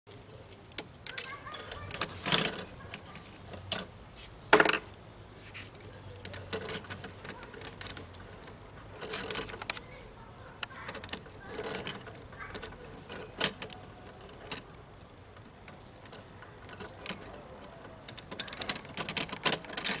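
Metal door locks and bolts clicking and rattling as a cockatoo works them with its beak: a string of sharp metallic clicks and knocks, the loudest a few seconds in, with a quick run of clicks near the end.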